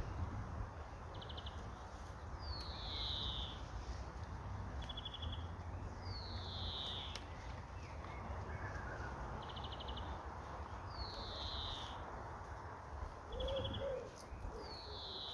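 A songbird repeating the same short phrase four times, about every four seconds: a quick trill followed by a longer falling note. A steady low rumble sits underneath.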